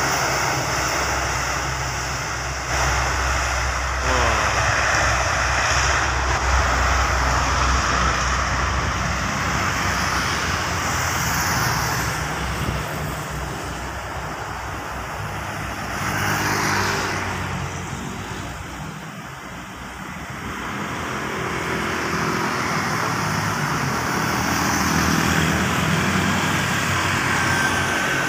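Road traffic passing close by, including motorcycles, over the steady drone of a C-130 Hercules's turboprop engines running on the airfield, which is strongest in the first several seconds and then fades.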